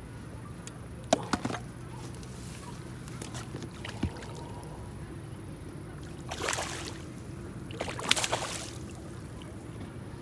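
Water splashing at a fishing pond, two short splashes about a second and a half apart, after a few light clicks.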